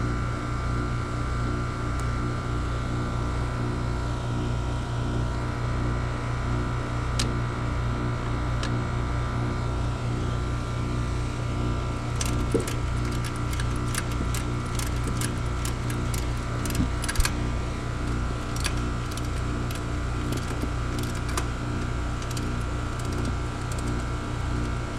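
Steady machine hum with a low throb about twice a second, joined from about halfway by a run of light metallic clicks and taps from hand tools being worked on the refrigerant line fittings.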